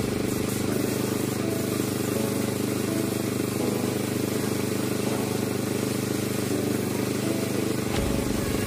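Piston air compressor running steadily, a low mechanical hum with a constant hiss above it, supplying the spray gun's air hose.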